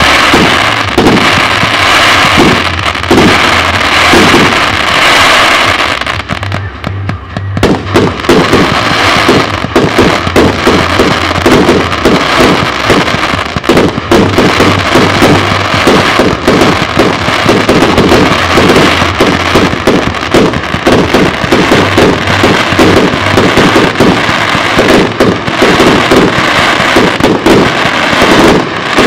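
Aerial fireworks going off: shells and rising shots bursting with loud bangs and crackle. After a short lull a few seconds in, the reports come in rapid, almost continuous succession.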